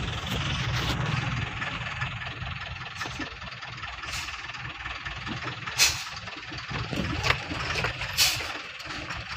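Eicher goods truck's diesel engine running under way, heard from inside the cab with road noise, a little quieter after the first couple of seconds. Several short hisses come through at about four, six, seven and eight seconds in.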